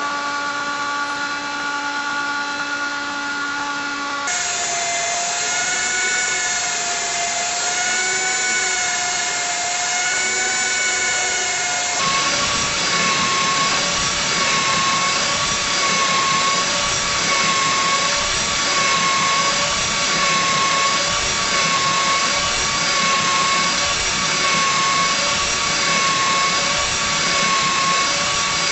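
Mirage MM500i portable flange facing machine running with a steady mechanical whine whose pitch wavers slightly. The sound changes abruptly about four seconds in and again about twelve seconds in.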